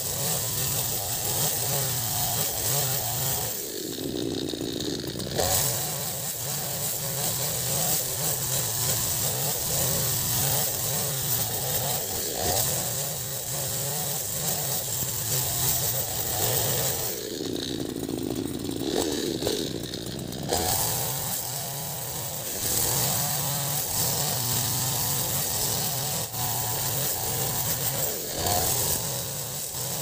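Petrol chainsaw at high revs ripping lengthwise through a squared timber to cut boards. Twice, about four seconds in and again around seventeen seconds, the engine drops off for a second or two, then picks back up.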